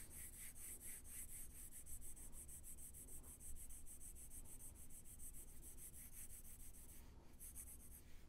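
Faint, soft rubbing of a drawing tool on a drawing surface as shading strokes are laid down.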